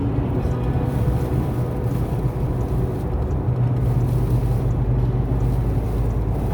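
Steady low rumble of a car driving, with engine and road noise.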